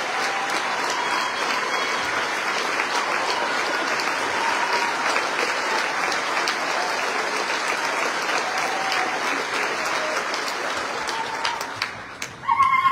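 Large theatre audience applauding steadily, with scattered voices calling out; the clapping dies down near the end, and a single voice calls out loudly just before the end.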